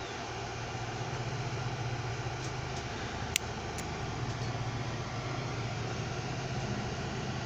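Steady low machine hum, with a single sharp snip of small bonsai clippers cutting through a shoot about a third of the way in.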